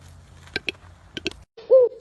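Four sharp clicks over a low hum, then, about a second and a half in, the hum cuts off and a bird starts a cooing call, one short pitched note.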